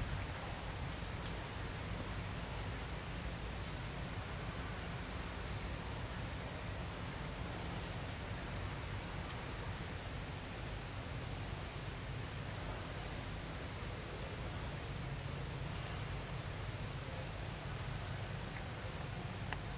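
Steady outdoor ambience: a low rumble under a high, thin buzz of insects that pulses evenly throughout.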